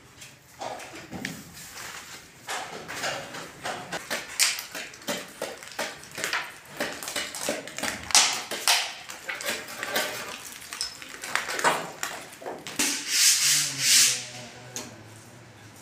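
Hand tools scraping and sanding a plaster ceiling: quick, irregular rasping strokes of a putty knife and sanding pad on the surface, with a louder run of strokes about three-quarters of the way through.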